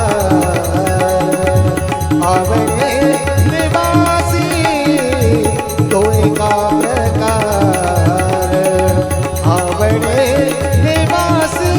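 Marathi devotional abhang music: tabla playing a steady rhythm under a melody that slides up and down in pitch.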